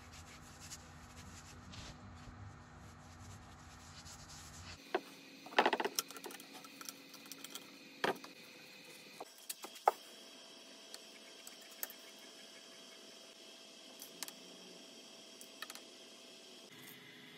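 Faint workshop handling sounds from a wooden clock face: a brush working finish over the surface, then scattered knocks and rubs as the clock face is moved about on the bench, loudest about six seconds in, and a few light clicks near the end as the metal clock hands are fitted.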